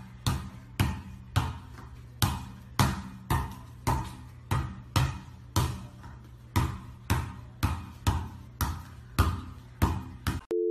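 A soccer ball being juggled on a tiled floor: a quick, uneven run of thumps, about two touches a second, as it is struck with feet, knees and head, each touch ringing briefly off the hard room.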